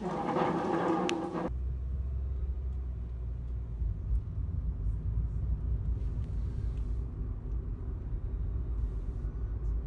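Low, steady rumble of a car driving, heard from inside the cabin, starting about a second and a half in after a brief snatch of other sound.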